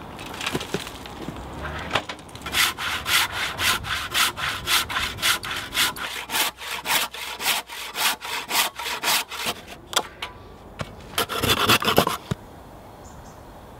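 Handsaw cutting through green oak, sawing a tenon, with steady strokes about three a second. After a short pause, a quick final flurry of strokes frees the waste block.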